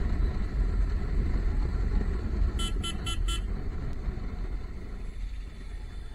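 Riding a motorcycle through town traffic: a steady low rumble of engine and road, recorded through a GoPro in its closed housing. About two and a half seconds in, a vehicle horn beeps four times in quick succession.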